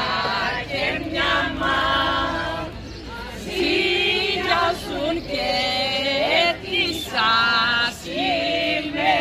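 Group of villagers singing a traditional Greek Palm Sunday dance song in unison, women's voices to the fore, with no instruments or clapping. The song goes in held phrases with short breaks between them.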